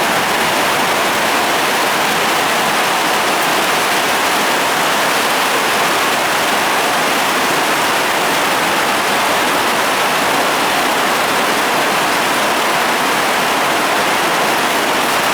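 Heavy tropical downpour, with a loud, steady hiss of rain falling.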